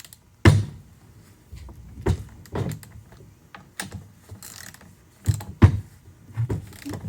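Socket wrench tightening the bar nuts on a Stihl chainsaw: a series of separate, irregularly spaced metal clicks and clunks.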